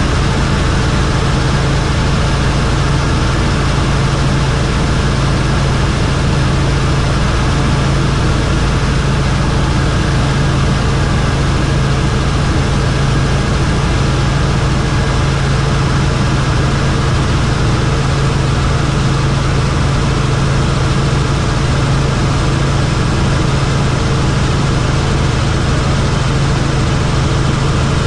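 Helicopter in flight: steady, loud engine and rotor noise with a strong low hum.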